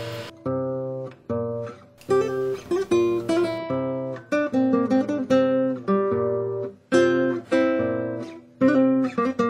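Background music: an acoustic guitar playing plucked and strummed chords, each note struck sharply and ringing away.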